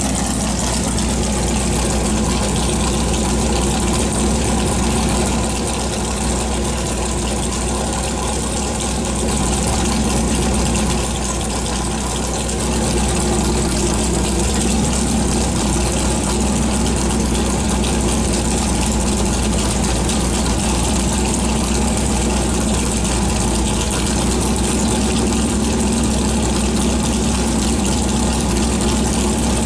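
Big-block Chevy V8 with a radical cam and open exhaust idling steadily in a 1973 Corvette.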